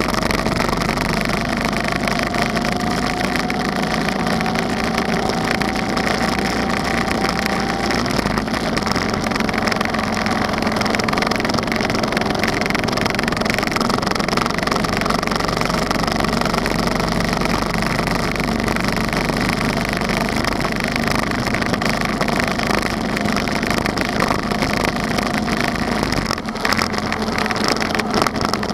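Motorcycle cruising at a steady speed: its engine runs under a heavy rush of wind on the bike-mounted microphone. The deep low rumble drops away near the end.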